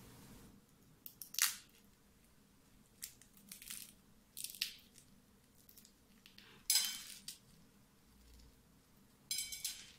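Crisp deep-fried sigara böreği with a hand-rolled pastry shell being broken apart by hand, the shell crackling in several short crunches, the loudest about seven seconds in. The crunch is the sign that the shell is fried crisp.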